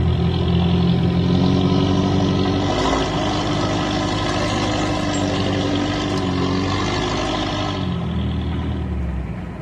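Off-road vehicle's engine running while driving over rough ground. It speeds up about a second and a half in, holds the higher speed, and eases back near the end.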